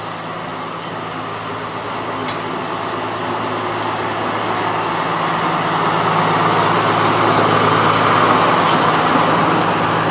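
Hudswell-Clarke 0-6-0DM narrow-gauge diesel-mechanical locomotive running at a steady engine note as it approaches and passes close by. It grows louder as it draws near and is loudest about eight seconds in.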